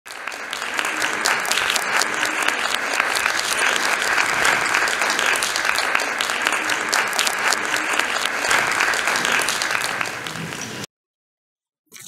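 Audience applauding, a steady dense clatter of clapping that cuts off abruptly about a second before the end.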